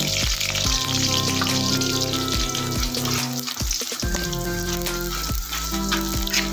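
Chopped shallots and garlic sizzling steadily in hot oil in a wok as they are stirred with a metal spatula. Background music with sustained notes plays under the sizzle.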